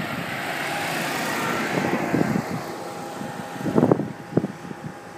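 Biplane's engine and propeller noise fading away over a few seconds after takeoff, with wind buffeting the microphone in a few thumps about four seconds in.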